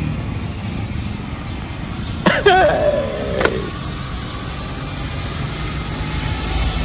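Steady low outdoor rumble, with a man's single drawn-out vocal exclamation about two seconds in, falling in pitch over about a second.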